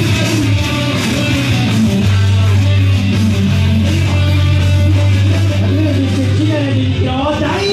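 Rock entrance theme with electric guitar: a bending, wavering lead line over a steady low bass note.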